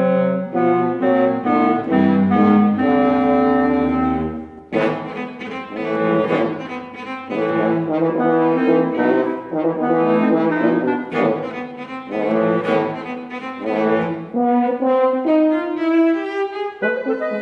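Chamber trio of French horn, clarinet and cello playing contemporary classical music, the horn the most prominent, in busy, quickly changing notes. About five seconds in the texture turns suddenly fuller and brighter.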